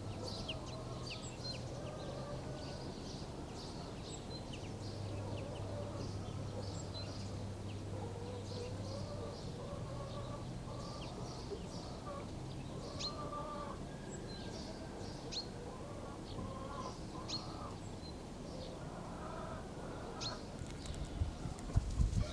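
Village farmyard morning ambience: small songbirds chirping with many quick high calls, and chickens clucking in wavering calls, over a low steady hum. A low thump comes just before the end.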